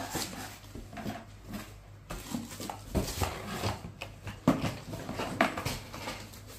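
Rummaging in a cardboard box: irregular knocks, rustles and light clatter as items are handled and moved against the cardboard.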